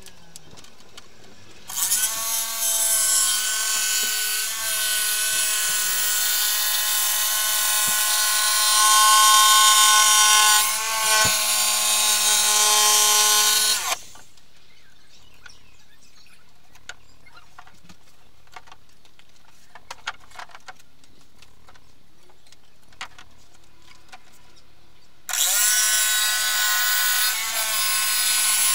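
Handheld electric saw cutting a sheet of board: one long cut of about twelve seconds, a pause with a few small knocks, then the saw starts cutting again near the end.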